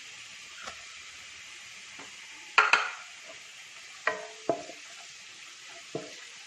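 Chopped ginger and garlic sizzling in hot coconut oil in a pan, with a spoon knocking and scraping against the pan a few times as it is stirred; the loudest knock comes about two and a half seconds in.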